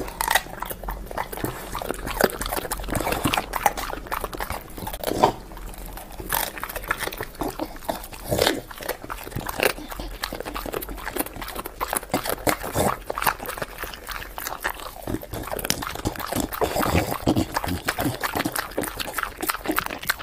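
A dog crunching and chewing cauliflower with its mouth open, with wet smacking and a rapid, irregular run of crunches throughout.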